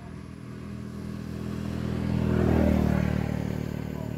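A motor vehicle's engine passing by, growing louder to a peak a little past the middle and then fading.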